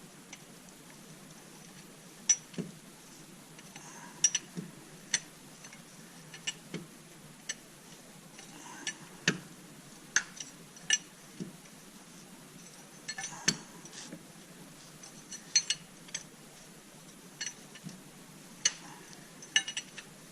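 Metal tools and engine parts clinking and tapping against each other in irregular sharp knocks, some in quick pairs, each with a brief high ring.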